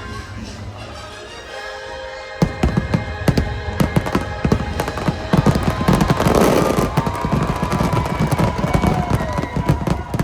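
Fireworks bursting in quick succession, with sharp bangs and crackling over background music. The bangs come thicker from a couple of seconds in, with a dense crackling burst a little past the middle.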